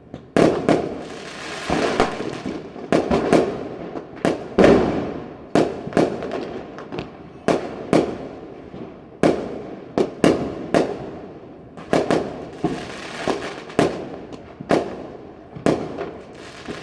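Skyshot aerial firework cake firing a long series of shots, one sharp bang roughly every half second to a second, each trailing off as it fades.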